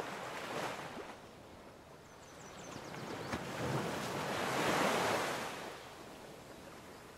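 Gentle ocean surf from a background nature soundscape: a soft wash swells up about three seconds in, peaks, and fades away again. A few faint high ticks come just before the swell.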